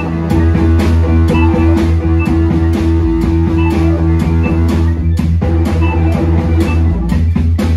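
Live instrumental keyboard and mallet-percussion music: a deep sustained keyboard bass and held chords under struck percussion hits keeping a steady beat of about two a second. The bass drops out briefly a little past the middle, then comes back.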